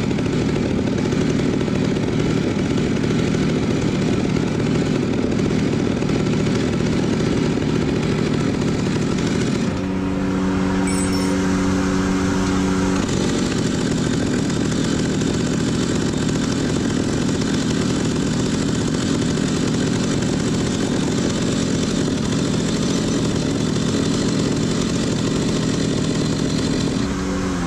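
Stihl MS 380 chainsaw's two-stroke engine running on the bench with its top cover off while the carburetor is adjusted with a screwdriver. The engine speed wavers, holds a steady, even pitch for about three seconds near the middle, then drops in pitch just before the end.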